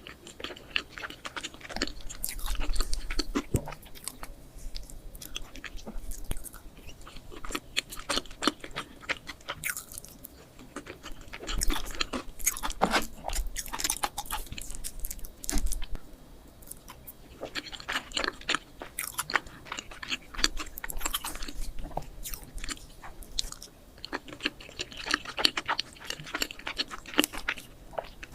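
Close-miked mukbang eating sounds: a person biting and chewing melting chocolate cake, with dense, irregular small clicks and crackles that come in bursts throughout.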